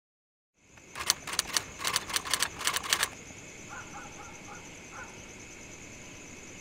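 Campfire crackling in a quick, irregular run of sharp snaps for about two seconds, which stop abruptly. Then a faint, steady high drone of night insects with a few short chirping calls.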